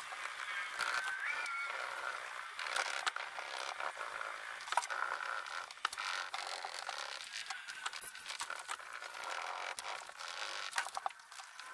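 Hand-polishing the painted roof of a 2006 GMC Sierra with rubbing compound on a small pad: an uneven back-and-forth scrubbing on the paint with scattered small clicks. This is the hand buffing that blends the new rattle-can paint into the old and takes out the fine sanding scratches.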